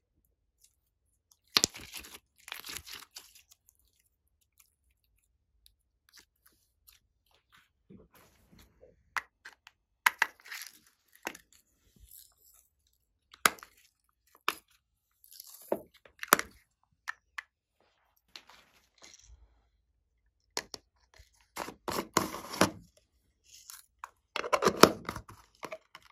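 Slime being stretched and squished, giving scattered crackly, sticky bursts, along with clicks and knocks of plastic makeup compacts and slime containers being handled. The longest, loudest crackling comes in the last few seconds.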